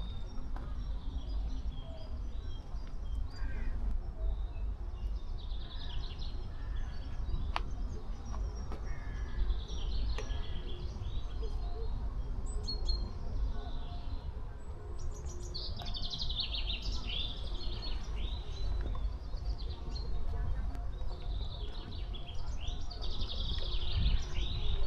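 Songbirds chirping and singing in many short, quick calls, busiest in the second half, over a steady low rumble.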